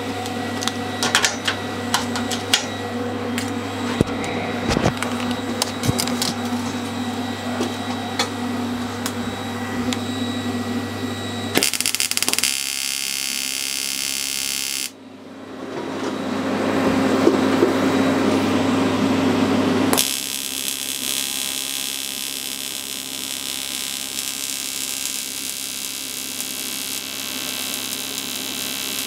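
Electric welding set humming, with sharp clicks and knocks of parts and clamps being handled. After a few abrupt changes, a steady hissing buzz of the welding arc takes over.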